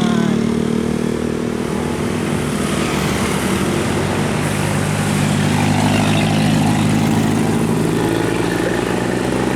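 Bus engine running steadily, a low even drone.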